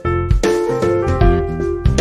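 Background music: a keyboard tune over a steady beat.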